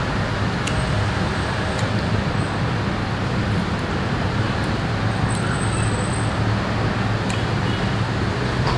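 Steady background rumble and hiss, with a few faint clicks.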